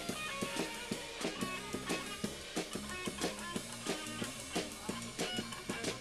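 A live rock band playing: a drum kit keeping a steady, fast beat with cymbals, under a guitar.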